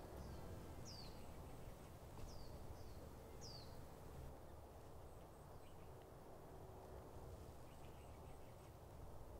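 Faint outdoor background with a steady low rumble, and a small bird giving about five short, falling chirps in the first four seconds.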